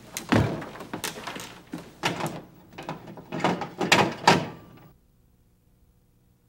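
Knocks, bumps and rattles of things being handled on a kitchen counter, about eight in a row. The sound cuts off to silence about five seconds in.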